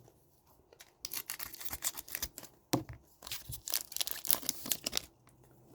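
A trading-card pack wrapper being torn open and crinkled by hand: a run of rustling and tearing that starts about a second in and lasts about four seconds, with one sharper snap near the middle.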